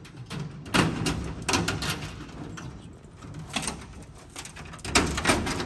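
Sheet-metal panels being shifted and set in place by hand: irregular metallic knocks and rattles of a metal plate on a perforated metal floor panel, loudest about a second in and again near the end.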